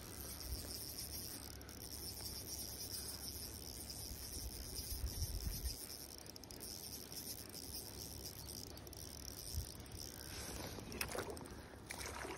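Spinning reel cranked steadily with a high-pitched whir as a hooked trout is reeled in. Near the end, the trout splashes in a landing net.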